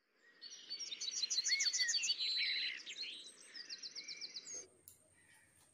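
Birds chirping and singing in quick, repeated trilled phrases that cut off suddenly near the end.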